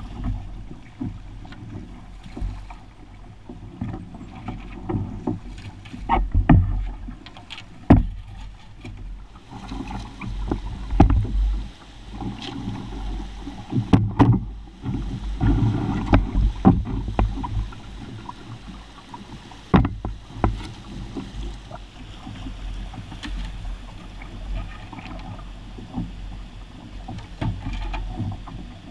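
Rapids rushing steadily around a canoe being poled upstream, with irregular sharp knocks and clunks every second or few as the setting pole strikes the canoe and the rocky bottom.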